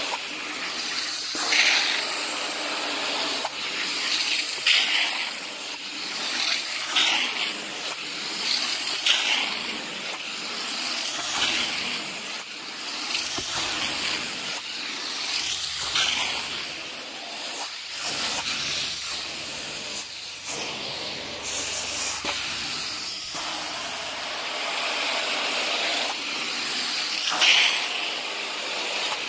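Carpet-cleaning extraction wand drawn over carpet: a steady high hiss of suction and spray that swells and eases with each stroke, about every two seconds.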